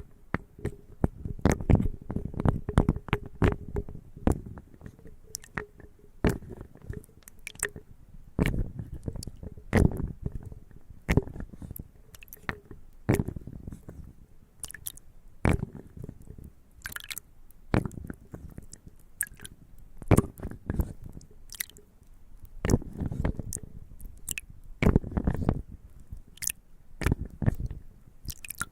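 Dry ingredients clattering against wood: irregular sharp taps and crunchy rattles, with denser flurries now and then.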